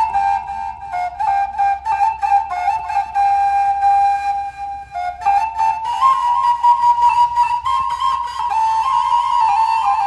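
Background music: a flute playing an ornamented melody. The melody moves up to higher notes about six seconds in.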